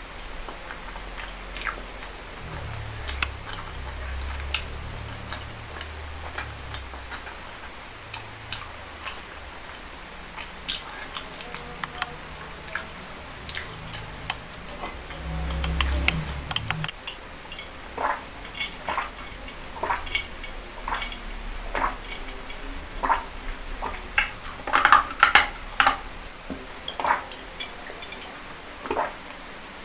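Close-miked chewing and wet mouth smacking on soft spicy meatballs and boneless chicken feet in thick sauce, with many short sharp clicks all through and a low rumble in the first half. It ends with sips from a glass mug.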